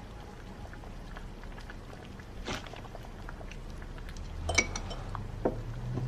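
Quiet room with a few small clinks of glass bottles and tableware on a table, the sharpest ringing clink about four and a half seconds in.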